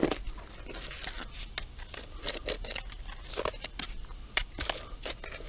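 Digging by hand in dump soil: irregular scrapes and crunches of a tool or hands working through dirt and debris.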